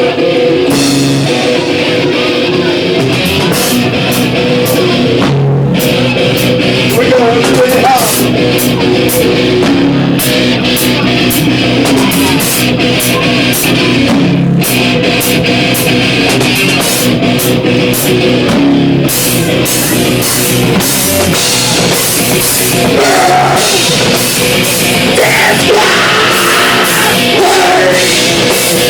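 A loud live rock band playing heavy and fast, with drum kit and cymbals driving it. About two-thirds of the way through, the cymbals get busier and the sound gets fuller.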